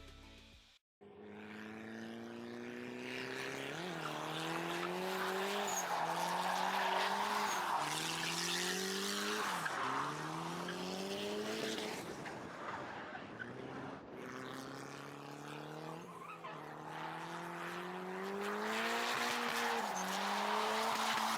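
A car engine accelerating hard through the gears. Its pitch climbs and drops back at each shift, about five times, over steady tyre and road noise.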